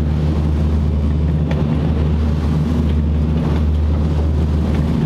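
Charter fishing boat's engine running steadily under way, a deep, even drone heard inside the wheelhouse.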